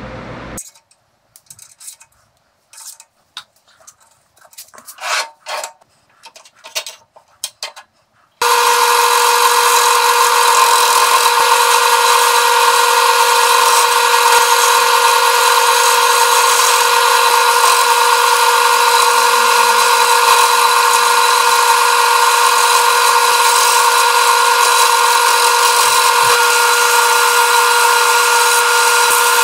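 A few scattered light knocks and clicks, then, suddenly about eight seconds in, a wood lathe running steadily with a constant whine while a turning tool cuts a spinning blue-epoxy-and-cedar pen blank.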